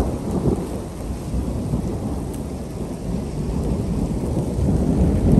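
Thunder rumbling from an approaching thunderstorm, swelling louder near the end, with rain falling.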